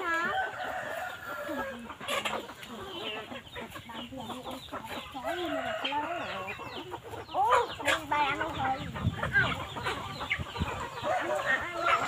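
Several chickens clucking, their calls overlapping, with a louder call about seven and a half seconds in.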